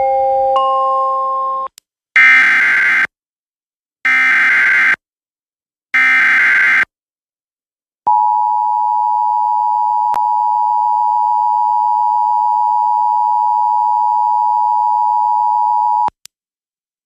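Emergency Alert System tones: a short rising three-note electronic chime, then three bursts of about a second each of warbling digital data, the SAME header that opens an alert. About eight seconds in comes the steady two-tone EAS attention signal, which lasts about eight seconds and cuts off sharply, the signal that an emergency alert message follows.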